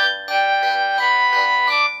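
Polyphonic mobile-phone ringtone playing a melody in electric-piano-like chords, the notes changing several times a second.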